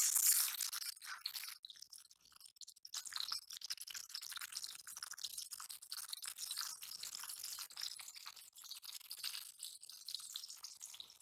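Tilapia pieces frying in hot oil in a metal pan: steady sizzling with fine crackling and spitting, loudest in the first second as another piece goes into the oil.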